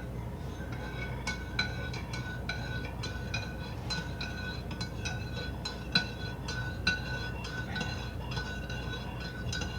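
A spoon stirring coffee in a mug, clinking against the sides again and again, each tap leaving a short ring.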